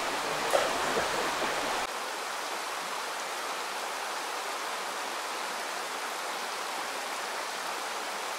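Shallow river running over stones: a steady, even rush of water, with a brief short sound about half a second in. Near two seconds the low rumble drops away suddenly and the rushing carries on steady.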